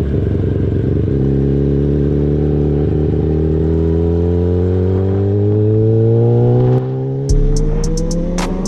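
Kawasaki ZX-10R inline-four sportbike engine pulling steadily under way, its pitch climbing smoothly as the bike accelerates. Near the end a run of quick high ticks joins in.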